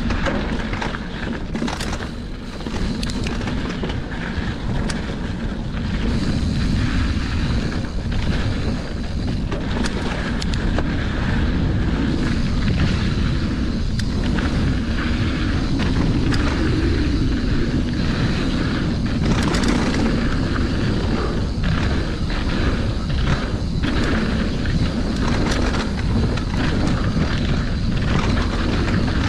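Wind buffeting the microphone of a mountain bike riding down a flow trail: a steady low rumble throughout, with scattered clicks and rattles from the bike.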